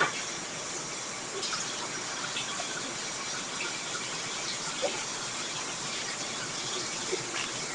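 Steady hiss of a webcam microphone, with a few faint small clicks from handling the lip gloss wand and tube.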